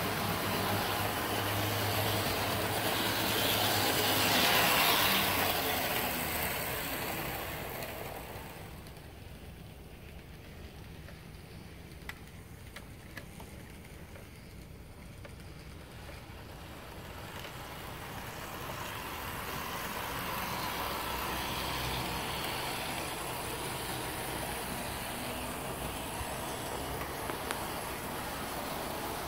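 HO scale Athearn Amtrak diesel locomotives running on the layout track: a steady motor whir and wheel rumble. It is loudest about four seconds in as the train comes close, fades in the middle with a few light clicks, and builds again toward the end.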